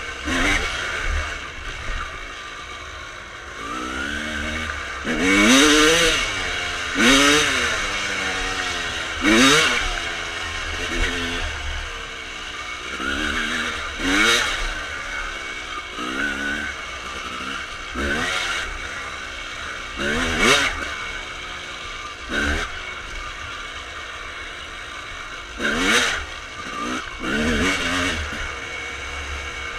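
1995 Honda CR250R's single-cylinder two-stroke engine, with full Pro Circuit pipes, revving up and backing off again and again while the bike is ridden on a trail. There are about a dozen rising and falling rev sweeps, with the engine running steadily between them.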